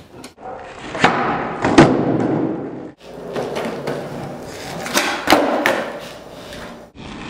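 Skateboard on a concrete floor: urethane wheels rolling, broken by sharp clacks and slaps as the tail pops and the board lands after tre flips (360 flips). The sound comes in short pieces that cut off abruptly.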